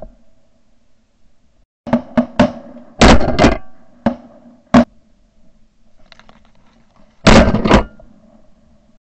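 Shotgun shots fired at flying ducks, heard through a camera mounted on the gun: a rapid series of sharp blasts, some in quick pairs, with a loud pair near the end.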